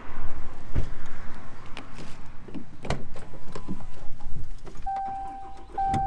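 Getting into a Ram 2500 pickup: a run of door and handling clunks and knocks, then from about five seconds in a steady electronic warning tone from the truck's dashboard, with a short break in it near the end.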